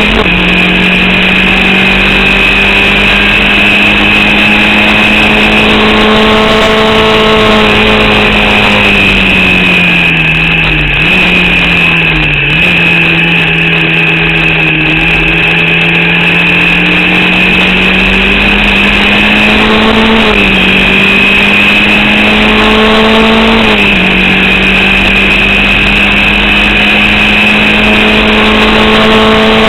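Formula Vauxhall single-seater's 8-valve four-cylinder race engine, heard from a car at racing speed, with a misfire the driver reports. It holds high revs, drops in pitch in steps about a third of the way in as it shifts down, then climbs slowly, with brief dips later; a steady high whine runs alongside.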